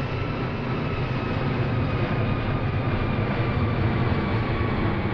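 Steady jet airliner drone: a low, even rumble with faint high engine whine tones held over it.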